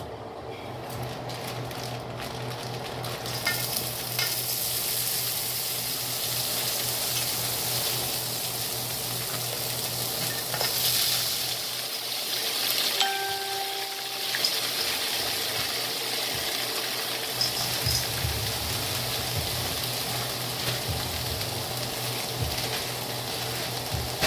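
Frozen stir-fry vegetables going into hot sesame oil in a wok and sizzling steadily, the sizzle coming up a few seconds in and holding.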